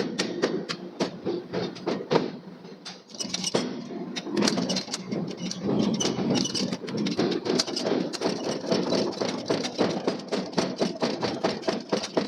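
Forging hammer striking a steel billet in rapid, evenly repeated blows, about four to six a second, over a steady machine din, with a brief lull about three seconds in.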